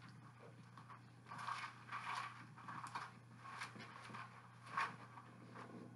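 Thin Bible pages being leafed through: about five faint papery rustles, the one near the end the loudest, over a steady low hum.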